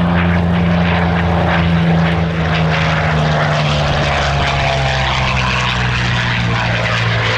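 A WWII piston-engine fighter flying past, its engine drone loud and steady and falling gradually in pitch as it goes by.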